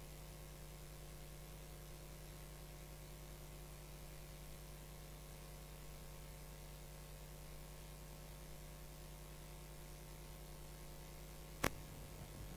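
Steady low electrical mains hum over faint hiss, with one sharp click near the end.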